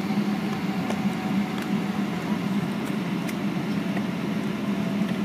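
Steady cabin noise inside a Boeing 757-200 taxiing on the ground: the engines running at low taxi thrust with a constant low hum and an even rush of air, with a few faint ticks.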